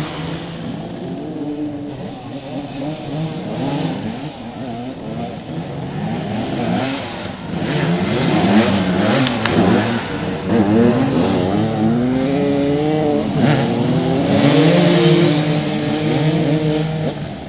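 Several motoball motorcycles revving at once, their engine notes rising and falling and overlapping as they accelerate and slow. The revving gets louder about halfway through.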